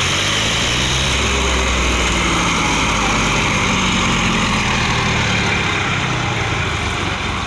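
Swaraj tractor diesel engines running hard under load, pulling against each other in a tractor tug-of-war. The sound is loud and steady, with the engine pitch wavering slightly.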